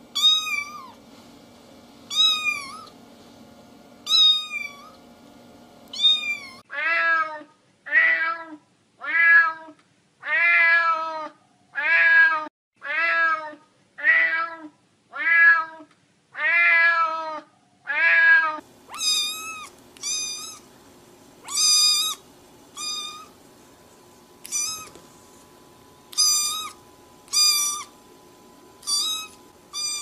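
Domestic cats meowing in turn, one recording after another: four short, high, falling meows about two seconds apart, then a faster run of lower meows about one a second, then a higher-pitched series of meows at an uneven pace.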